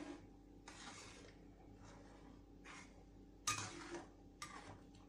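A ladle stirring and scraping through coconut milk with jackfruit pieces in a frying pan: faint, irregular swishes and scrapes, with a sharper clack against the pan about three and a half seconds in.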